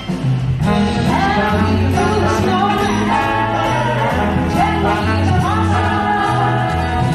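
A live orchestra with vocalists performing on stage, a singing voice carried over the full band, recorded from the audience.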